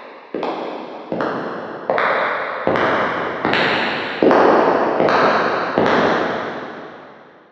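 Footsteps walking at a steady pace, about one step every 0.8 seconds, each step ringing on with a long echo. The steps grow louder, and the last one, near six seconds in, echoes away.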